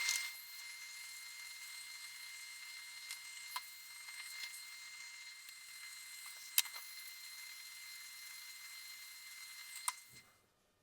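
Faint steady hiss with a thin high whine, broken by a few small sharp clicks of hand work on wiring and parts.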